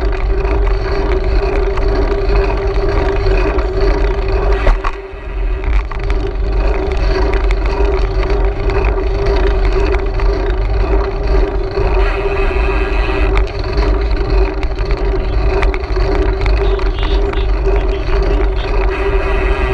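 Wind rumbling on the microphone of a GoPro riding along on a bicycle, with a steady droning hum under it. The sound dips briefly about five seconds in.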